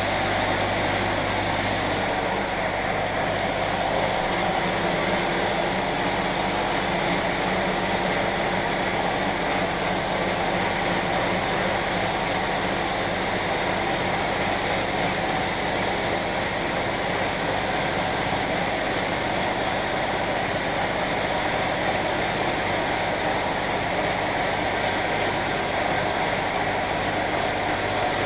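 Steady, unbroken hiss and hum of running machinery, with the upper hiss changing briefly between about two and five seconds in.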